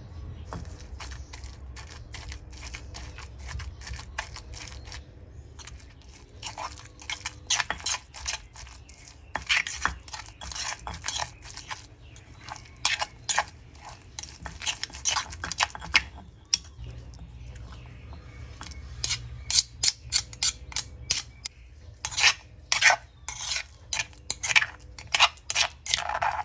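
Kitchen utensils knocking and clinking against dishes in bursts of quick, sharp strokes, over a steady low hum.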